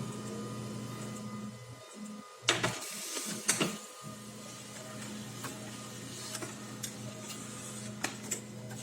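Canon LBP-2900 laser printer running a print job: a steady motor hum with the clicks and clatter of paper feeding, loudest around three seconds in, and a few more clicks near the end. It runs smoothly, with no rattle.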